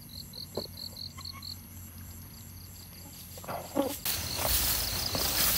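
Night insects, crickets, chirping in rapid pulses of about six a second, with a fainter, higher insect trill underneath. The lower chirping stops about a second and a half in. From about four seconds in, a louder rustling of grass takes over as someone walks through it.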